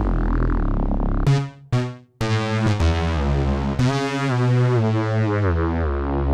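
Synthesizer music from a library sampled from an analog modular synth rig (Soundpaint Palindrome 11). A held chord, then two short stabs just over a second in and a brief break, then a new sustained synth line moving through several notes.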